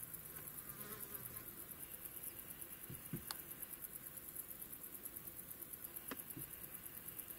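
A fly buzzing, dying away about a second and a half in, over faint steady field ambience with a few soft clicks.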